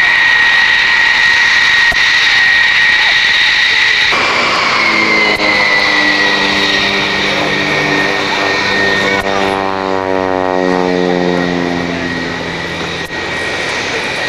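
For about four seconds there is a steady high-pitched whine from the General Dynamics F-111's turbofan jet engines. The sound then changes abruptly to the engine and propeller of an aerobatic biplane, whose note slowly falls in pitch.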